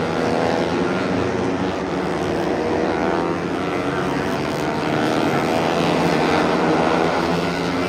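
Several Moto3 race bikes' 250 cc single-cylinder four-stroke engines running at high revs as they race past, their pitches overlapping and shifting.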